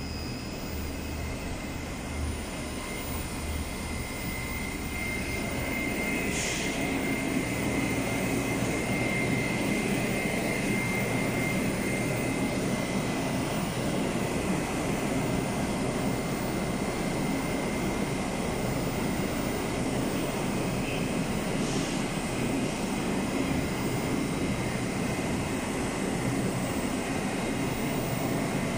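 Moscow Metro 81-775/776/777 subway train standing at the platform with its doors open: a steady running hum and noise with a thin high whine, growing a little louder about five seconds in, and two short hisses, about six and twenty-two seconds in.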